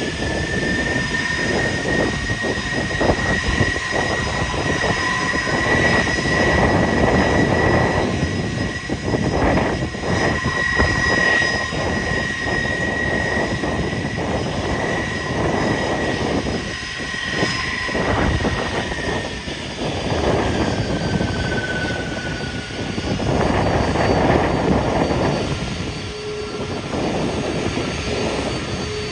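Jet engines of an Airbus A380 taxiing onto the runway: a steady high whine over a rushing engine noise. The whine drops in pitch about 20 seconds in.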